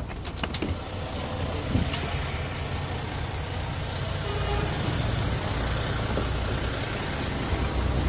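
Isuzu FVR truck's six-cylinder diesel engine running at idle, a steady low rumble, with a few sharp clicks near the start and the rustle of handling as someone climbs down from the cab.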